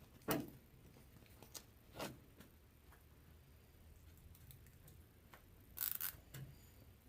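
Scattered clicks and a short rustling scrape of hands working the curtain's grommets and zip ties on the overhead track, with the sharpest click about a third of a second in and the scrape about six seconds in.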